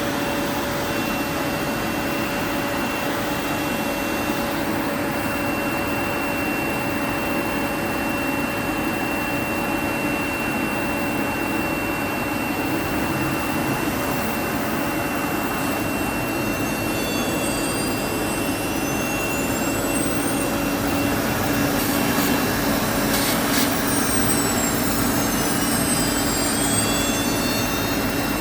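CNC woodworking router running: a steady high whine over a constant rushing noise. From about halfway through, high whines rise and fall in pitch.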